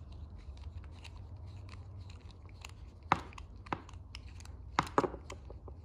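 Small clicks and scrapes of a screwdriver shaft against a metal lawn mower carburetor body as it is moved around inside the venturi, with a few sharper ticks about three seconds in and near the end, over a low steady hum.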